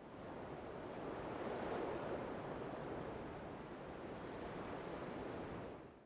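Muffled, low rushing water ambience, as heard underwater. It fades in at the start and fades out near the end.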